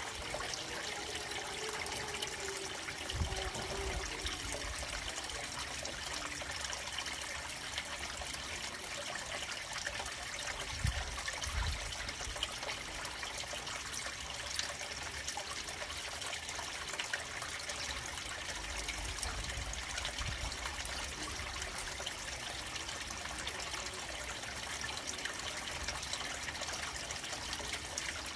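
Steady trickling and splashing of running water into a garden fish pond, with a few brief low rumbles along the way.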